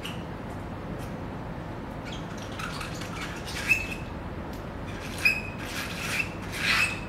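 Touch-up paint bottles and brush caps being wiped and handled during clean-up: soft rubbing with a few short, high squeaks, the loudest about halfway through and near the end.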